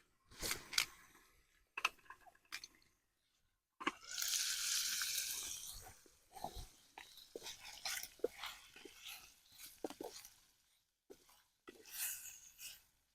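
Sliced smokie sausages sizzling and crackling in oil in a frying pan on a camp stove, in short spells with a longer steady sizzle about four to six seconds in.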